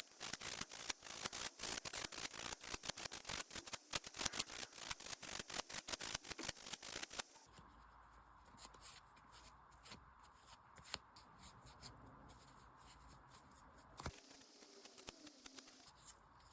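Fingernails being buffed with a nail buffer in quick back-and-forth strokes, a rapid scratchy rubbing that stops about seven seconds in, roughing the nail surface so gel will stick. After that only a few faint handling clicks remain.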